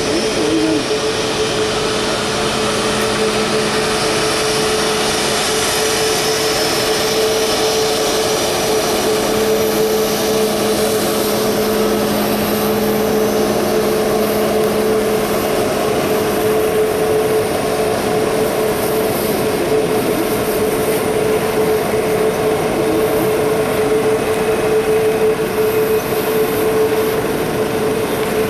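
Boeing 737 MAX 8's CFM LEAP-1B jet engines running steadily, a constant rush with a steady hum-like tone in it.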